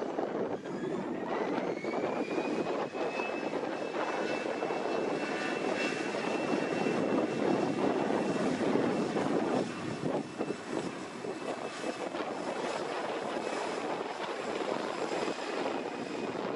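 Turbine aircraft engines spooling up: a whine rises over the first few seconds, then holds steady under loud engine noise. Wind is buffeting the microphone.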